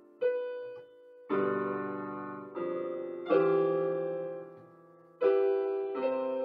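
Electronic keyboard on a piano voice, playing slow sustained chords: each is struck, then rings and fades before the next one comes, about every one to two seconds.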